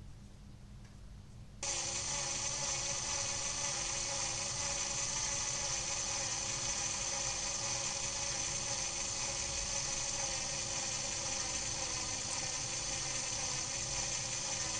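Cordless drill running at a steady speed, its motor and gearbox whining with a high steady tone, spinning a rubber-covered cylinder on an arbor. It starts suddenly about a second and a half in and runs unchanged after that.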